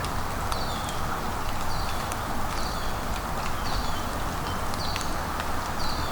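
Steady rain falling in a forest, with scattered drip clicks. Over it, a small animal gives a short, high two-part call about once a second, each call dropping in pitch at its end.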